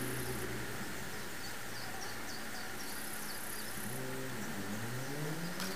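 Steady background hum with a motor engine that rises steadily in pitch from about four seconds in, as when a vehicle accelerates, over faint high chirps.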